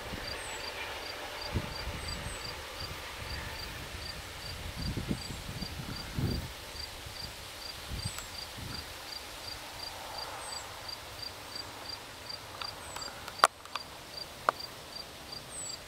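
A cricket chirping steadily in a high, even pulse, about two and a half chirps a second. Under it, the low rumble of a receding passenger train swells and fades over the first several seconds, and a sharp click comes near the end.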